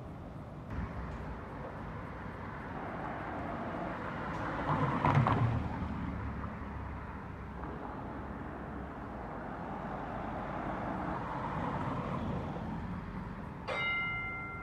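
Street traffic and the rolling of an A-class electric tram moving slowly along street track, with a louder swell of rumble about five seconds in. Near the end a bell strikes once and rings on for about a second.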